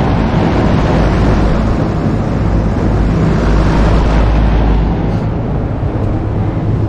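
Lennox package unit's condenser fan running: a loud, steady rush of air over a low rumble, easing slightly about five seconds in.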